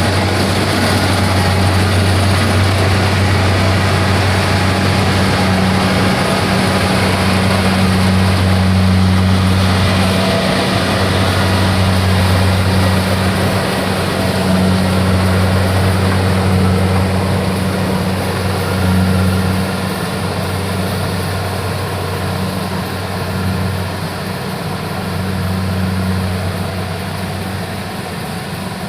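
Kubota farm machine engine running steadily at a low, even note, with brief dips in its sound now and then; it grows somewhat quieter about two-thirds of the way through.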